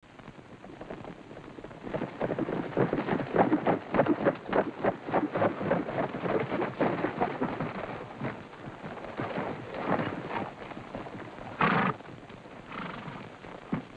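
Hoofbeats of a group of horses ridden along a dirt street, a quick, irregular clatter that sets in about two seconds in and thins out after about ten seconds. Near the end there is one short, louder burst of noise.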